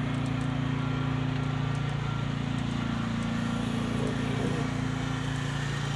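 An engine running steadily: a low, even hum that holds without change.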